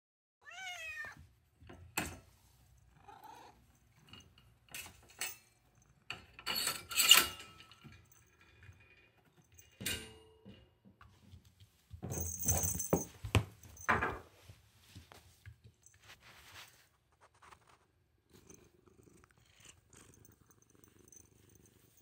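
Orange tabby cat purring, with one short meow right at the start. Knocks, rattles and rustling of handling come and go around it, the loudest clatter about seven seconds in.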